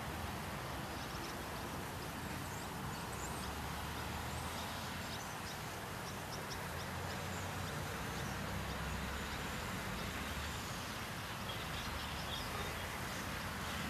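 Swallows giving short, high twittering calls in scattered clusters over a steady low background rumble.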